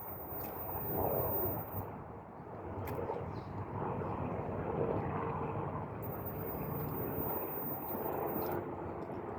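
Close-up chewing and crunching of cornstarch: a dense, gritty crunch with a few sharp clicks.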